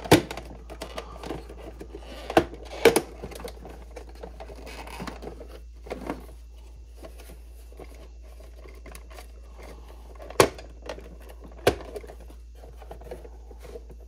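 Hard plastic casing of a Keurig K-Supreme coffee maker being wiggled and flexed by hand, giving a handful of sharp plastic clicks and knocks with light rubbing and handling noise in between.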